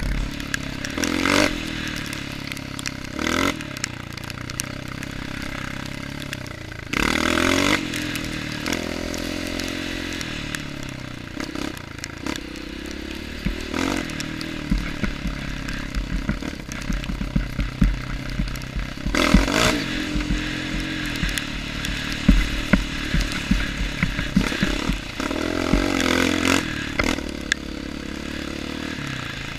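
Honda CRF230 dirt bike's single-cylinder four-stroke engine revving up and down as it is ridden hard, with loud surges of throttle twice. Frequent clattering knocks come through as the bike goes over the rough, muddy trail.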